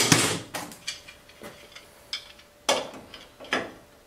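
Hand tools working metal parts at a forklift's tilt-cylinder mount: a short scraping metal rattle, then a string of separate sharp metal clicks and clinks, about one every half second.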